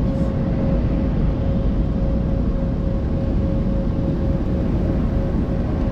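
Automatic car wash machinery running, heard from inside the closed car: a loud, steady rush of noise with a constant thin whine running under it.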